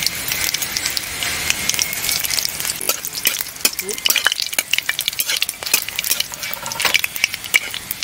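Nigella seeds (black cumin) and dried red chillies sizzling in hot oil in a metal pan while a spatula stirs and scrapes against the pan: tempering the spices at the start of a curry. A steady hiss of frying with frequent clicks and scrapes of the spatula, more of them in the second half.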